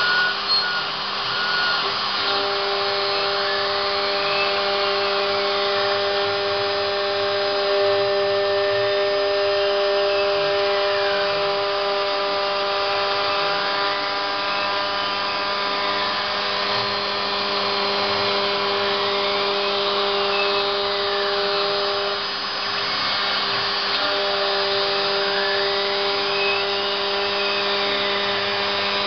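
CNC router milling PVC: a steady spindle and cutting whine with several held tones, and a higher tone that rises and falls about every five or six seconds as the machine makes its passes. Part of the whine drops out briefly about two-thirds of the way through, then resumes.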